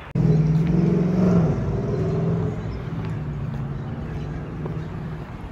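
Motor vehicle engine humming on the street, loudest in the first second or so and gradually fading over the next few seconds as it moves off.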